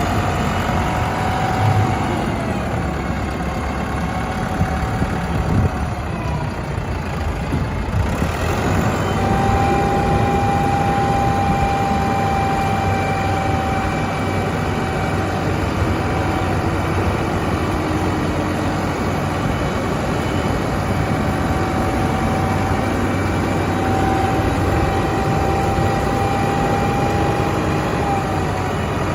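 Self-loading concrete mixer's heavy diesel engine running steadily, with a high whining tone over it. The sound changes abruptly about eight seconds in.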